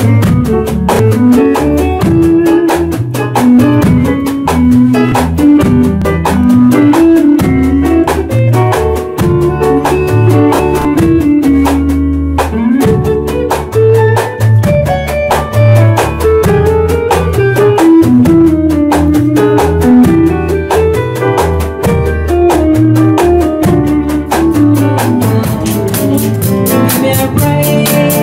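A small band playing: an electric guitar picks a melodic lead line over bass notes and a drum kit keeping a steady beat.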